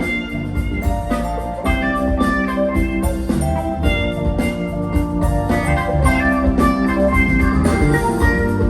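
Live funk band playing an instrumental passage: a steady drum-kit beat and bass under held, layered chords.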